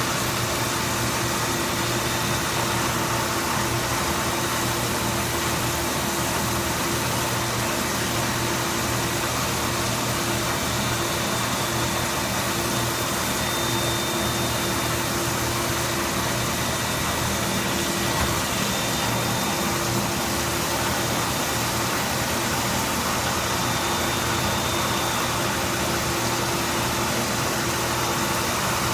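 CNC machine running steadily: an even mechanical hiss with a low hum and a few held whining tones, unchanging throughout.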